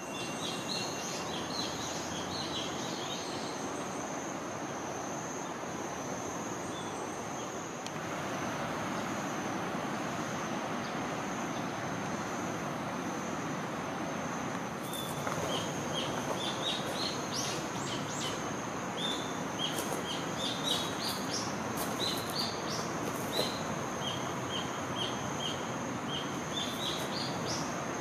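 Outdoor ambience of small birds chirping in short, quick calls, scattered at first and thick through the second half, over a steady high-pitched insect drone and a soft wash of background noise.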